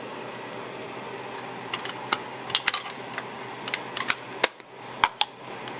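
Rubber stamp and craft supplies handled on a tabletop: a scattered series of sharp clicks and taps starting a couple of seconds in, as the inked stamp is pressed onto the card and set down.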